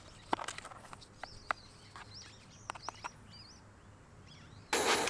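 Birds chirping in short, curving calls among scattered sharp clicks, then a sudden loud rush of noise near the end.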